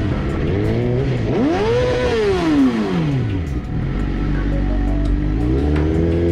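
Sport motorcycle engine pulling along at low speed, revved up sharply and back down once about a second and a half in, then running steadily with a smaller rise in revs near the end.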